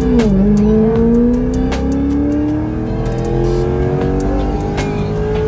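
The LS6 V8 of a 2001 Corvette Z06 pulling under acceleration. Its pitch dips briefly just after the start, then rises slowly and steadily as the revs climb.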